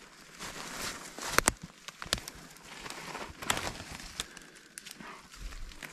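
Footsteps pushing through dense forest brush, with rustling branches and several sharp snaps of dry twigs.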